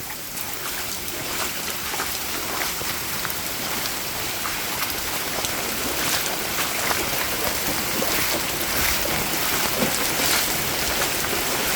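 Steady heavy rain from the approaching hurricane, with many individual drop hits, growing a little louder in the first couple of seconds and then holding.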